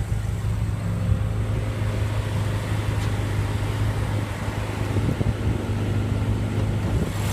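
BMW M6's 4.4-litre twin-turbo V8 idling with a steady low hum.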